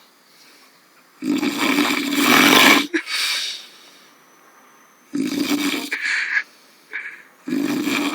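A man snoring loudly in his sleep after drinking. Three rasping snores come a few seconds apart, the first the longest.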